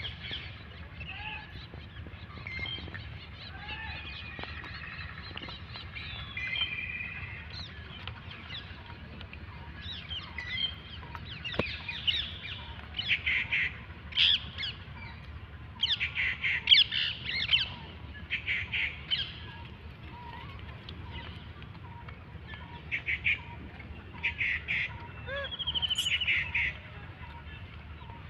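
Birds chirping in short bursts of high calls, sparse at first and busier and louder through the second half.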